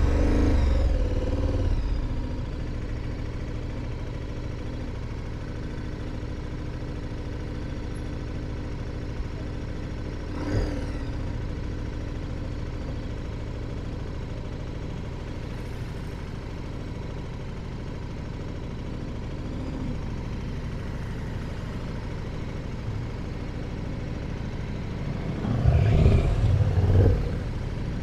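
Motorcycle engine running steadily on the move, with road noise; it is louder in the first couple of seconds, swells briefly about ten seconds in, and rises again for about two seconds near the end.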